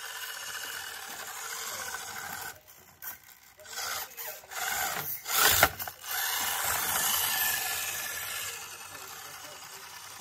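Mofo RC 'purple pancake' brushless motor and gear drivetrain of a small-scale RC rock crawler whining as it crawls uphill over rock. The whine stops and starts a few times around the middle. There is a sudden loud scrape about five and a half seconds in.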